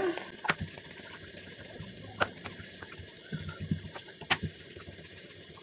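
Sweet maida puris deep-frying in hot oil, a steady sizzle with a few sharp pops as the puris puff up.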